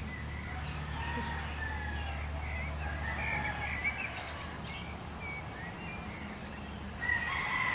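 Birds chirping in short scattered calls, with a rooster starting to crow about seven seconds in.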